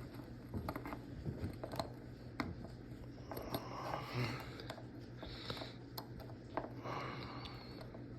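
Small, scattered metal clicks and taps of ratchet internals being handled as the batwing pawl is worked into the ratchet head.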